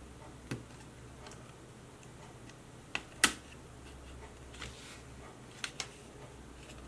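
A few scattered light clicks and taps of small parts and tools being handled on a workbench. The sharpest comes about three seconds in, and a quick pair follows near the end.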